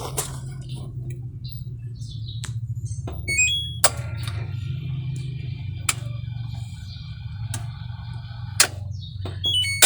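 LG smart inverter top-load washing machine set to spin-dry with water still in the tub, giving a steady low hum while no water drains out. Sharp clicks come now and then, and a short falling run of electronic beeps sounds twice, about a third of the way in and again near the end.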